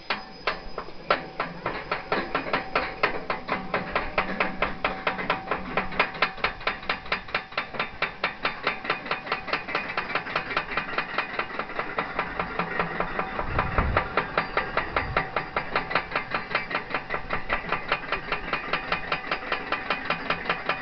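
Roller coaster train climbing its chain lift hill: the anti-rollback ratchet clicking rapidly and evenly over a faint steady hum.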